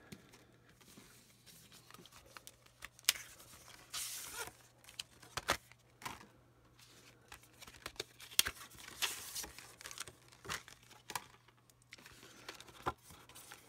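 Pokémon card packs and their cardboard-and-wrapper packaging being handled and torn: scattered crinkles and clicks, with two short tearing rustles about four and nine seconds in.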